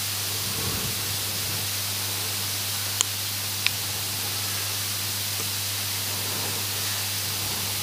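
Steady hiss of an open microphone and recording chain with a low steady hum under it, broken by two small sharp clicks about three seconds in and half a second later.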